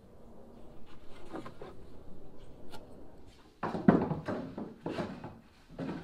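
A thin plywood strip being handled against a plywood boat seat: light rubbing and scraping, then, from about three and a half seconds in, several wooden knocks and scrapes.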